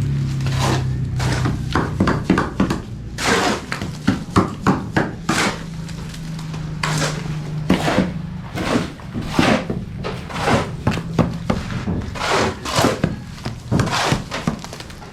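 Building work by hand: irregular knocks, thuds and scraping strokes of tools on masonry and wood, with a low hum coming and going underneath.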